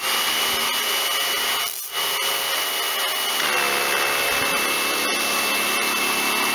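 Karcher K2 pressure washer's electric motor and pump running, a steady drone with a high whine. It dips briefly about two seconds in and drops slightly in pitch a little after three seconds. This is the rebuilt unit's first test run, and it is still leaking water.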